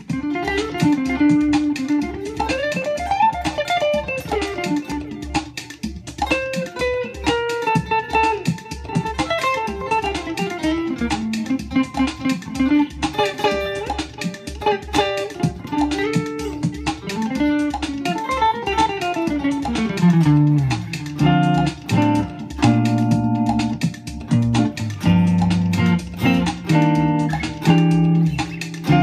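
Electric guitar played through an Xotic SP compressor pedal: bluesy single-note riffs with bends and slides over a backing track with a steady beat, turning to fuller, sustained low notes after about twenty seconds.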